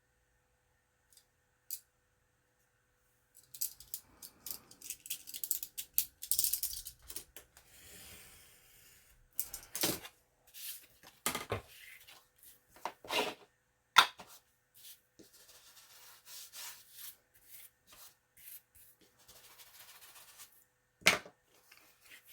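Paper pages being handled and worked with a metal ruler and craft knife on a tabletop: a stretch of close rustling and scraping, then a series of sharp knocks as the tools are set down and moved, with soft rubbing between.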